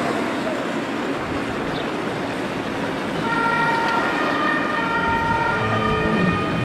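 Steady outdoor background noise. From about three seconds in, a horn-like sound of several steady tones at once starts, holding and breaking off now and then until the end.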